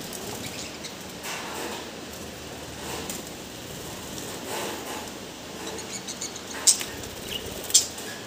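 Caged budgerigars chirping: a scatter of short, sharp high chirps in the second half, two of them louder than the rest, over a steady background hiss.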